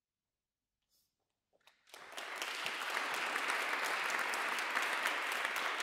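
Audience applause: after a near-silent pause, the clapping starts about two seconds in and keeps going steadily.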